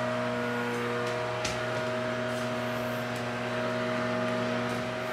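Steady machinery hum made of several constant tones, from equipment running in an aircraft carrier's interior machinery compartment, with a faint click about a second and a half in.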